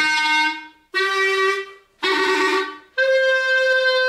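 Solo clarinet playing four loud, separate notes about a second apart, each attacked sharply. The first three fade quickly; the fourth is higher and held.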